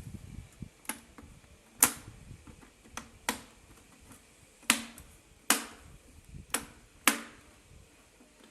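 A series of sharp clicks and taps, about eight of them at uneven intervals, each with a brief ring after it.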